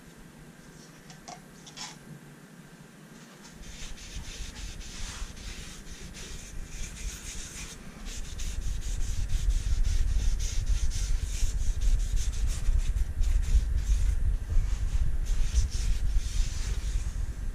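Cloth rubbing dye into the wooden top of a guitar body: steady back-and-forth scrubbing strokes. About eight seconds in the rubbing grows heavier and louder, with a low rumble under it.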